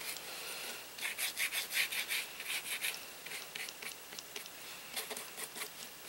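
Paintbrush bristles scratching across a painted board in quick back-and-forth strokes, laying on acrylic paint. The strokes come about four a second, then thin out to a few fainter ones about halfway through.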